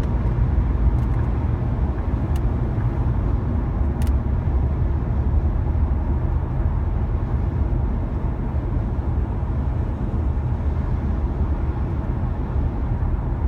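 Ford Mondeo with a turbocharged EcoBoost petrol engine on the move: steady engine and road noise, easing off a little about eight seconds in, with no distinct whistle standing out.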